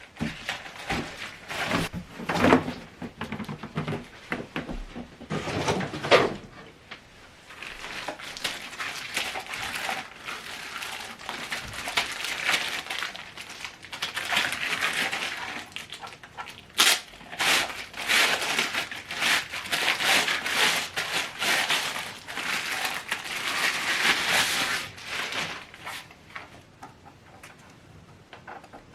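Rustling and crinkling of packaging, with scattered knocks, as a soundbar is unpacked and handled. The sounds come in irregular bursts, busiest in the first few seconds and again through the second half.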